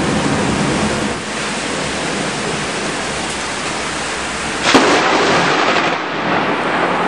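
Heavy thunderstorm rain pouring steadily, with a sudden loud crash of thunder a little under five seconds in that lasts about a second before falling back to the rain.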